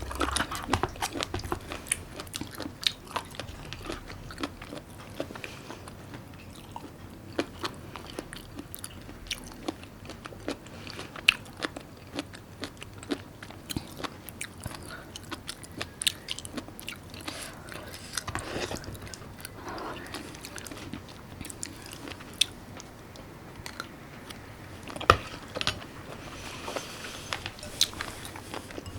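A person chewing and biting food close to the microphone: many small irregular mouth clicks and smacks, with a couple of louder sharp crunches.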